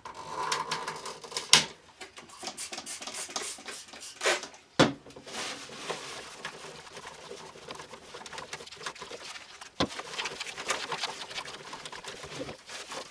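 Cleaning the plastic shell of a 1980s Armatron toy robot arm: cloth or brush rubbing and scrubbing over the plastic, with scattered clicks and a few sharp knocks as the toy is handled.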